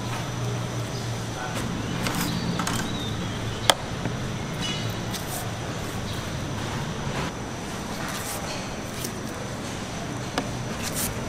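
Street-market background noise: a steady murmur of distant voices and hum, broken by scattered clicks and knocks, the sharpest about three and a half seconds in.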